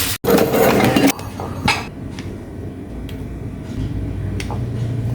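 Kitchen clatter: a loud noisy hiss for about a second, then scattered light knocks and clinks of utensils against dishes and pans.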